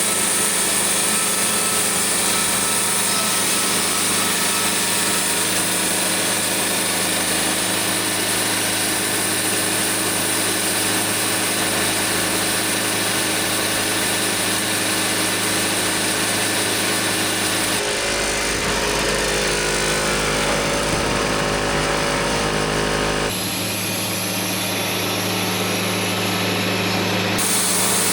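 A small engine running steadily at a constant speed, in several short clips joined by abrupt cuts where the engine note changes.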